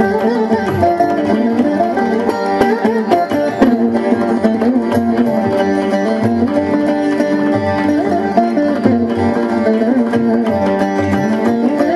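Background music: Carnatic veena playing a melody with sliding, bending notes, over percussion.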